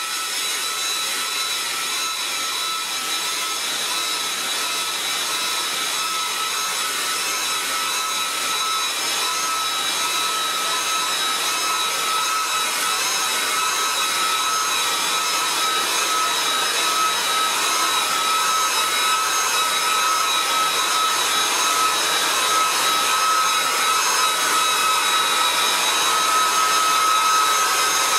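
Handheld hair dryer running steadily on one setting: a constant motor whine over a rush of air. It is blowing over a freshly brushed layer of acrylic binder to dry it.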